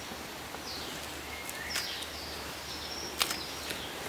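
Outdoor rural ambience with a steady background noise and several short, high bird calls that sweep downward in pitch, plus a sharp click about three seconds in.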